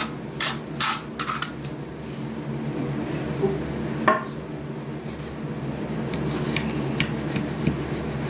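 Trowel scraping across a bed of deck mud (sand-and-cement mortar) as it is floated to a slope: several quick rasping strokes in the first second and a half, then quieter rubbing, with a sharp clink about four seconds in.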